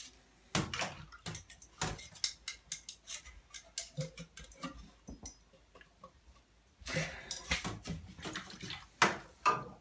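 Brass French horn slides and a cleaning snake clinking and knocking against each other in a bathtub of soapy water, with water splashing; the light metal clicks come irregularly, thicker in the second half.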